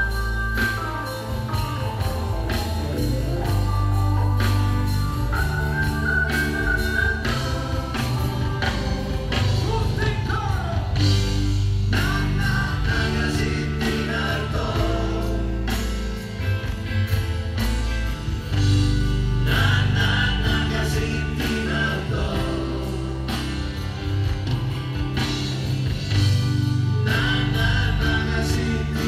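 Live band playing a song, with male voices singing over keyboards, acoustic and electric guitar, bass and drums.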